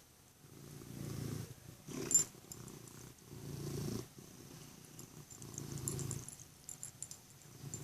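Domestic cat purring close up, the low purr swelling and fading in waves about every two seconds with each breath. This is the laboured breathing of a cat with a vet-diagnosed enlarged heart. A brief sharp click comes about two seconds in.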